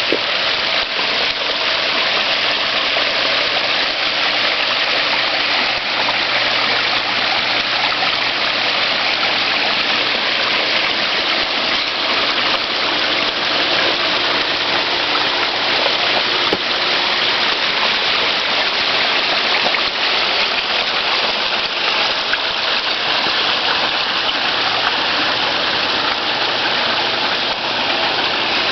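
Water pouring steadily over a built backyard pond waterfall, a constant splashing rush.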